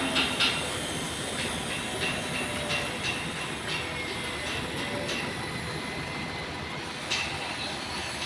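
Hydraulic boom truck running steadily, with short high-pitched metallic squeals and clanks now and then.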